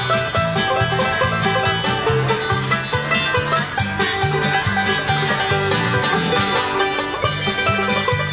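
Banjo picked in a bluegrass style: a steady, quick stream of bright plucked notes.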